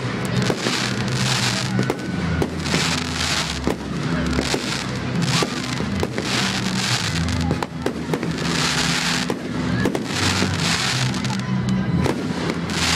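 Aerial fireworks going off with many sharp bangs and crackles, over loud accompanying music with a steady bass line.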